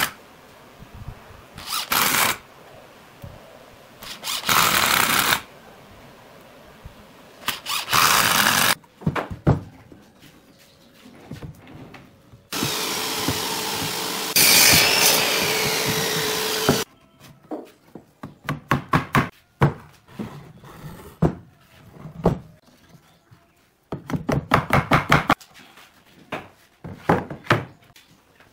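Cordless drill driving screws into a pine table-leg frame in short bursts of about a second each, several times over. Midway a power tool runs steadily for about four seconds, louder in its second half, and near the end come quick runs of knocks and clicks of wooden parts being handled and fitted.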